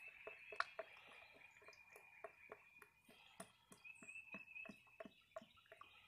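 Faint glugging of CVT fluid pouring from an upturned quart bottle into a funnel: a quick, even run of soft gulps as air bubbles back into the bottle.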